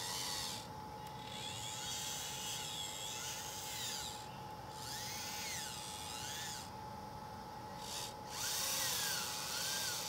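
Electric drive motors and gearboxes of an RC track loader whining in several spurts, pitch rising and falling as the tracks speed up and slow down, with a grinding hiss of gears and tracks in the dirt. A faint steady high tone runs underneath.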